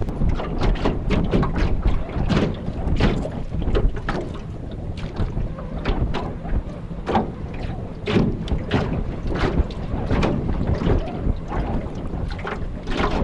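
Gale-force wind buffeting the microphone with a heavy low rumble, while choppy waves splash and slap irregularly against the small craft, about one to two slaps a second.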